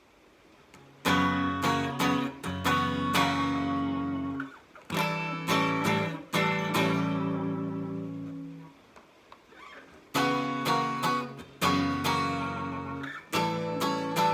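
Partscaster electric guitar played clean through an amp with no effects, strumming a run of chords that ring out. A pause of about a second comes near the middle, then the strummed chords resume.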